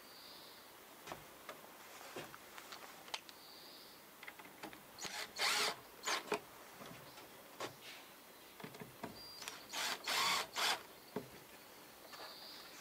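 Cordless drill driving screws into the boards of a small wooden box: two short bursts, one a little under halfway through and a longer one about three-quarters through, with light clicks and knocks of handling between.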